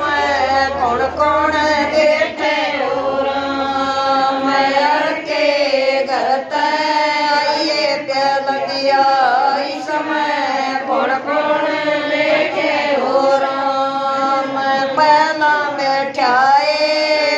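A group of women singing a Haryanvi folk bhajan together, in a repetitive chant-like melody with long held notes.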